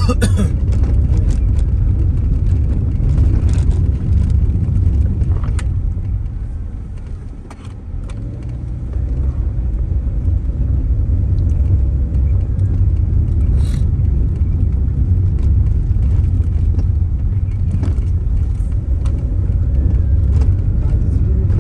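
Car cabin noise while driving over a rough, worn road: a steady low rumble of tyres and engine, with scattered small knocks and rattles. The rumble eases off around seven seconds in, then builds back up.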